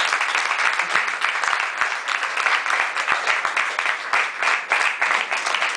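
An audience applauding steadily at the end of a song, many hands clapping together.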